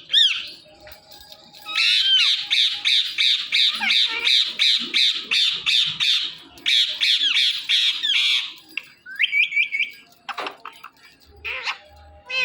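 Ringneck parakeet giving a long, fast run of harsh squawks, about four a second, with a short break partway, then a few short whistled chirps near the end.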